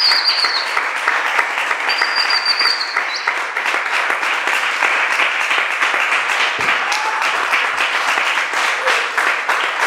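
Audience applauding steadily, with two shrill wavering whistles of approval in the first three seconds.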